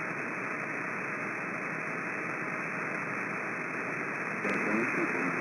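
CB radio receiver hissing with static on an empty channel. About four and a half seconds in, a weak transmission comes up under the static with a faint, garbled voice.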